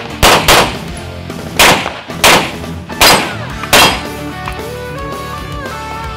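Six handgun shots, loosely in pairs, in the first four seconds, over background music that carries on after them.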